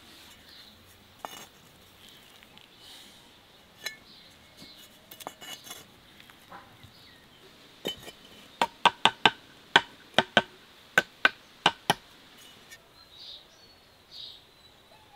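Steel trowel clinking against fired bricks as they are laid and tapped into place in mud mortar: scattered light taps, then about a dozen sharp, ringing clinks in quick succession from about eight to twelve seconds in.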